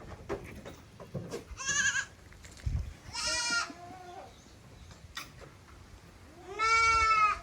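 Goats bleating: three separate calls, the first with a wavering, quavering pitch and the last the longest and loudest.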